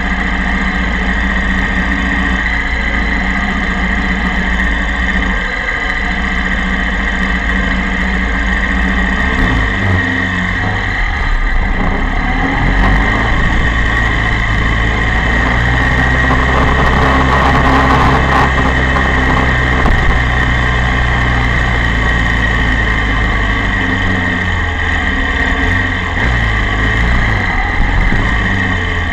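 Honda VFR400 V4 engine running at low revs as the bike rolls slowly, heard from a camera mounted on the bike. The engine note steps up about ten seconds in, and the revs waver near the end.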